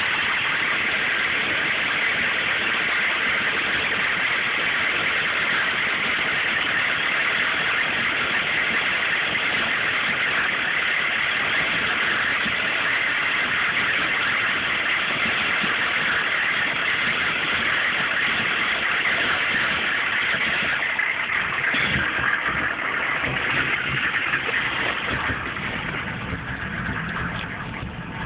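1995 GMC K3500's 6.5 L V8 turbo diesel engine running at idle with a rough idle, a truck prone to misfiring and stalling, which the owner suspects is a failing PMD or injection pump. About three-quarters of the way through the sound changes: a lower rumble comes in and the level drops off toward the end.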